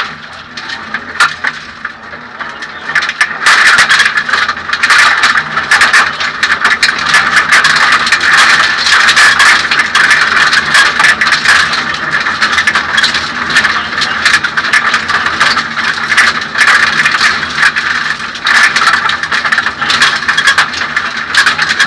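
Suzuki Swift 1600 N2 rally car at speed, heard from inside its caged, stripped cabin: the 1.6-litre four-cylinder engine running under dense rattling and clatter. It is quieter for the first few seconds, then louder from about three and a half seconds in.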